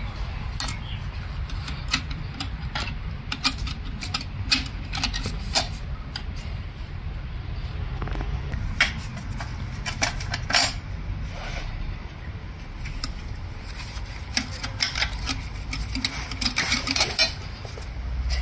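Irregular light metallic clinks and clicks as clutch plates are stacked by hand into the clutch pack of a Nissan RE0F11A CVT, over a steady low hum.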